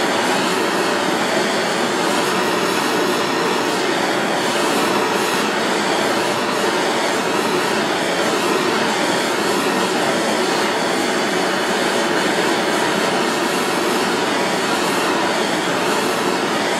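Hand-held propane torch burning with a steady hiss, its flame heating a steel knife blade toward non-magnetic before an oil quench.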